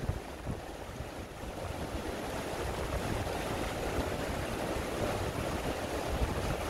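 Steady rushing of a fast mountain river over rocks, with wind gusting on the microphone as a low, flickering rumble.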